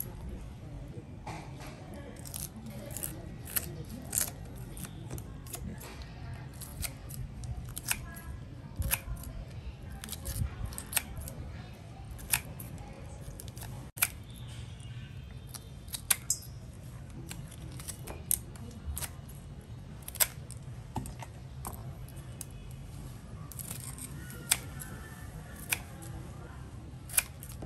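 Sharp, short clicks and snips at uneven intervals, some close together and some a second or two apart, over a steady low hum.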